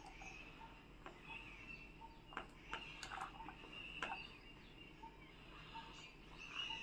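Faint scraping and a few soft clicks of a silicone spatula pushing diced apple off a plate, the pieces dropping into a pot of custard.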